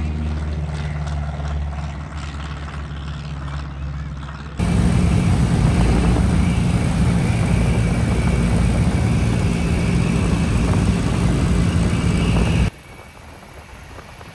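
Light aircraft's piston engine and propeller droning steadily as the plane passes low over the field. About four and a half seconds in, this gives way suddenly to loud engine and propeller noise inside the small high-wing plane's cockpit. Near the end the noise drops abruptly to a quieter drone.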